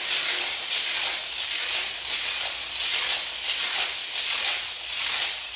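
Pink weighted smart hula hoop spinning round the waist, its weighted ball running on the track of the segmented plastic band with a continuous rattling whir. The rattle swells and fades in a steady rhythm, about once a turn.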